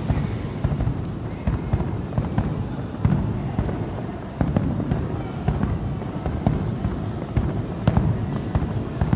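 Aerial fireworks display going off: many sharp bangs in quick succession over a continuous low rumble.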